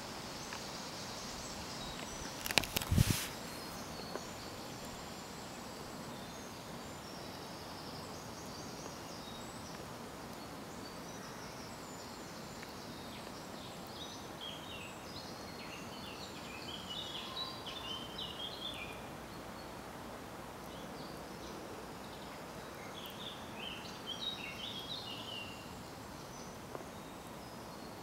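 Steady background noise with small birds singing, a run of quick high chirping phrases in the middle and again near the end. A brief sharp knock, the loudest sound, comes about three seconds in.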